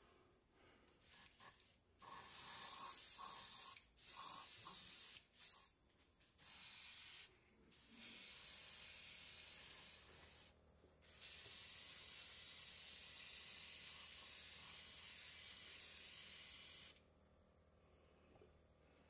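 Airbrush spraying paint: bursts of air hiss that start and stop sharply as the trigger is worked, several short ones and then one long steady spray of about six seconds that cuts off near the end.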